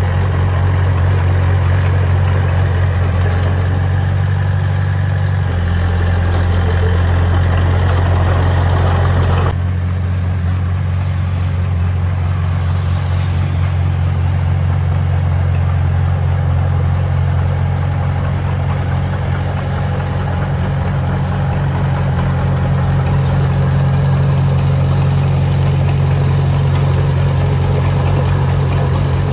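Heavy diesel engine of construction machinery running steadily at a low, even speed. The sound changes abruptly about a third of the way in.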